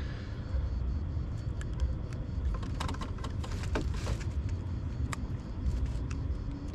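Steady low rumble with scattered small clicks and taps as a small sea bass is handled and unhooked by hand.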